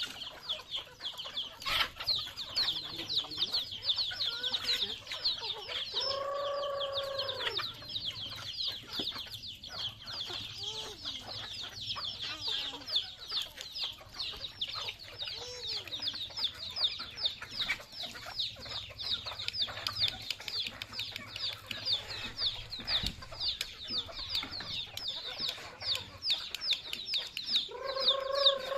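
A flock of native chickens clucking over a fast, steady, high-pitched chirping, with a long drawn-out chicken call about six seconds in and another near the end.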